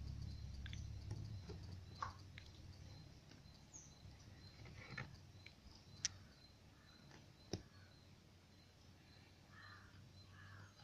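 Near silence: a low hum dies away over the first few seconds, with a few faint clicks and taps, the sharpest about six and seven and a half seconds in.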